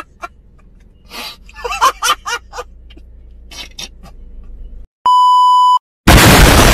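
A man laughing in short repeated bursts, then a single steady beep of under a second about five seconds in. A loud explosion blast follows right after it near the end.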